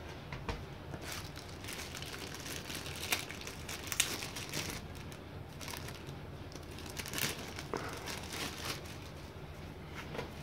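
Thin clear plastic bag crinkling and rustling in irregular bursts, with a few sharper crackles, as hands open it and pull out a small AC power adapter.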